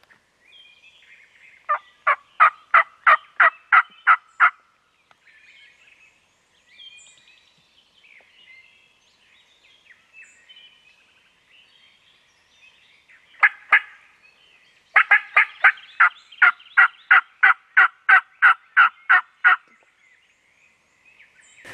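Turkey yelping, loud and evenly spaced at about four a second: a run of about ten yelps from about two seconds in, two more a little past the middle, and a longer run of about twenty from about fifteen seconds in. Faint songbirds chirp in the gaps.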